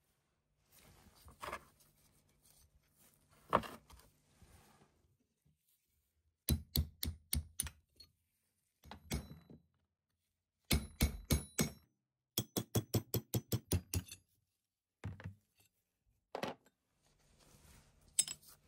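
Quick runs of sharp taps on metal, about five or six strikes a second, in three bursts, with a few single louder knocks and quieter handling noise between them.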